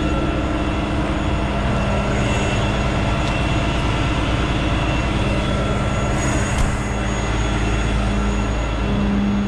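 Kenworth truck's diesel engine idling steadily, a low rumble with a constant hum.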